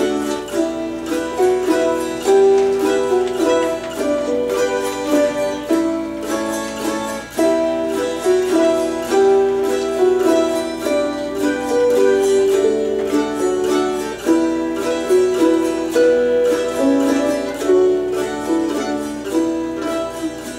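Autoharp, lever harp and mandolin playing a Celtic tune together: plucked notes that ring on and overlap, the melody moving at an unhurried pace.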